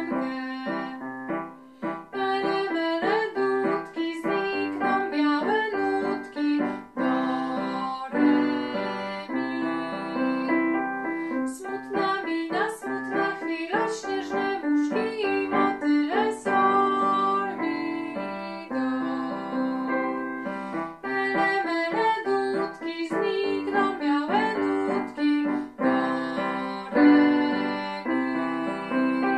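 A woman singing a children's song, accompanied on an electronic keyboard with a piano sound.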